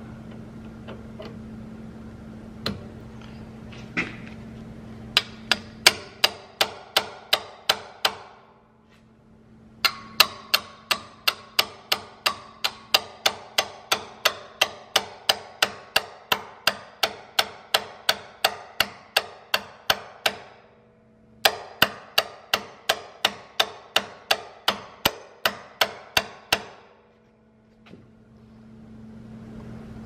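Hammer repeatedly striking the plunger of a metal grease-zerk rejuvenator tool on a plugged grease fitting, each blow ringing. The blows come in three long runs at about three a second, with short pauses between them, to drive penetrating oil through the clogged fitting.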